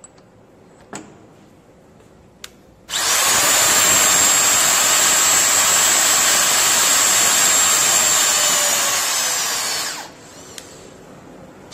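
Hanpu electric torque wrench with an L-shaped reaction arm tightening a hex bolt: its motor and gearbox run loudly for about seven seconds with a steady high whine, the pitch sagging a little near the end as it slows under load, then stops abruptly. A few light clinks come first as the socket is fitted onto the nut.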